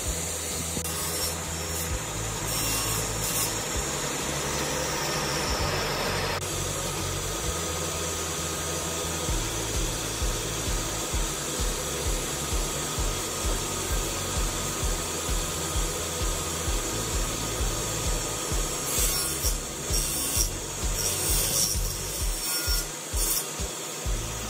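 Table saw running with a steady whine as long wooden strips are ripped along the fence. Several short knocks and clatter of wood come near the end.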